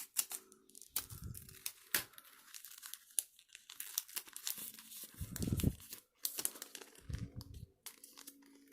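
Foil wrapper of a Pokémon TCG booster pack being torn open and crinkled in the hands, with many sharp crackles and a few dull bumps of handling.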